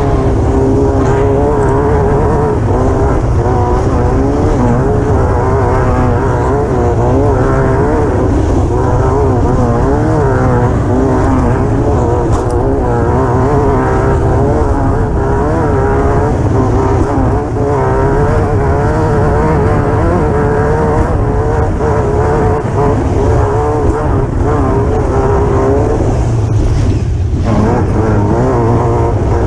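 Class 9 desert race buggy's engine running hard at racing speed, its pitch wavering up and down with the throttle, over a steady low noise of wind and rough ground on the onboard camera microphone.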